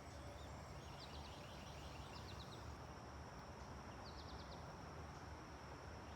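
Quiet background with a low hum and a thin steady high tone, broken three times by short runs of rapid, high-pitched chirps from a small animal.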